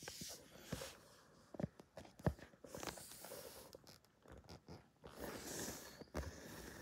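Soft rustling and scuffing with scattered light taps and knocks, and two short bursts of hissy rustling, one at the start and one about five seconds in.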